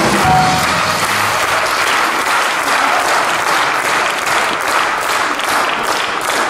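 Audience and choir clapping steadily in applause after a gospel song.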